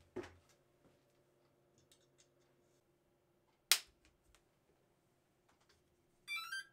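A knock, then a single sharp snap a little past the middle, then near the end a short run of electronic beeps in stepped pitches: the brushless motor's speed controller (ESC) playing its start-up tones through the motor once the battery is connected.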